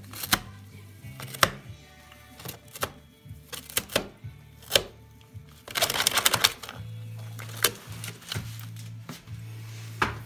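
Pet rabbit chewing and tearing at a cardboard box: irregular sharp crunches and snaps, with a dense run of rapid tearing about six seconds in. Background music with steady low notes plays underneath.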